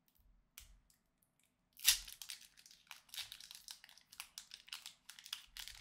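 A foil Pokémon card booster pack wrapper being torn open and crinkled by hand. It is nearly quiet at first, then there is a sharp rip about two seconds in, followed by steady crackling of the foil.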